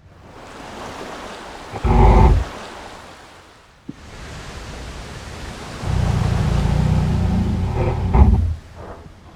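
Monster snoring sound effect over steady rain hiss: a short growling snore about two seconds in, then a long, low snore from about six seconds in that ends in a brief growl.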